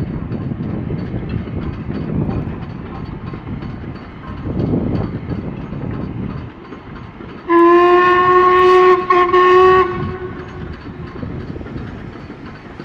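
Black 5 steam locomotive running past with a steady rumble, then sounding its whistle in one blast of about two seconds, briefly broken near its end, a little over halfway through.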